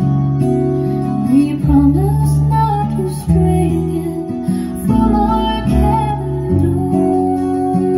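A folk-style song led by acoustic guitar, played back through a pair of JBL 4344 four-way studio monitor loudspeakers driven by a Sansui AU-D907F integrated amplifier.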